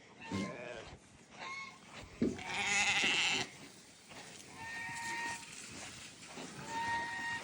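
Goats bleating several times, the loudest and longest bleat coming a little after two seconds in, with shorter, higher calls after it.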